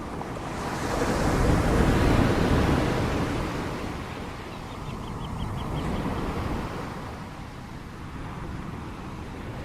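Ocean waves breaking on the shore. One large wave swells up about a second in and crashes around two seconds, and a smaller wave breaks around six seconds, over a steady surf roar.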